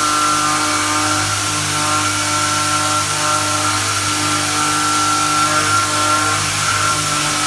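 A machine tool running during machining: a steady, loud mix of several pitched whines that shift and step on and off, over a constant hiss.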